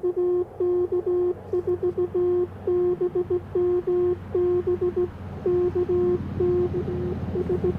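Morse code (CW) tone from an Icom IC-705 transceiver, a single steady note keyed on and off in a continuous run of dits and dahs over a low steady hiss.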